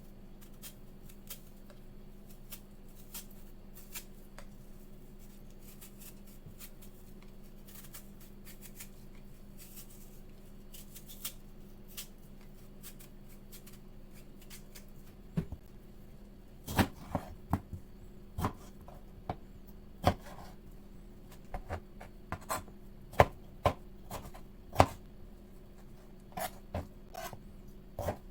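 Kitchen knife chopping on a cutting board in irregular strokes, starting about halfway through, over a steady low hum; before that only faint small clicks.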